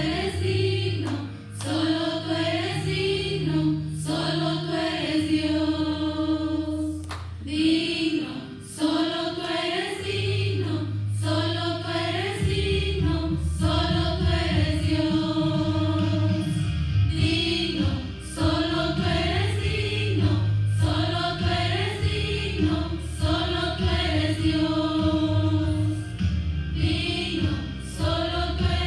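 A women's vocal group singing a Christian worship song together through microphones and a PA, over an accompaniment of sustained low bass notes that shift every few seconds.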